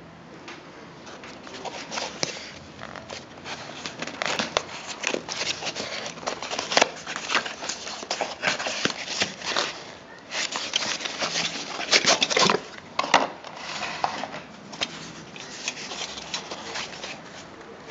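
Cardboard box being opened by hand: irregular scraping, rustling and crackling of cardboard flaps, then a nylon zippered pouch being lifted out and handled near the end.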